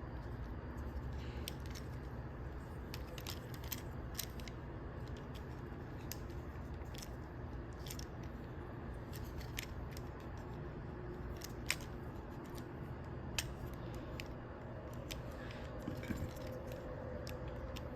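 Small, sharp plastic clicks and taps, scattered and irregular, from the parts of a Transformers Studio Series Ratchet action figure being turned and tabbed together by hand during transformation, over a steady low background hum.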